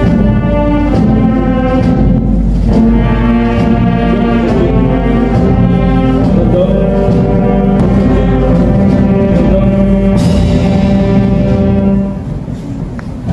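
Ceremonial band music: brass holding long chords over timpani, which ends about a second before the close.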